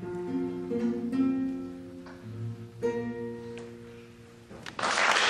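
Classical nylon-string guitar playing the last plucked chords of a song, the notes ringing and fading away. Applause breaks out near the end and is the loudest sound.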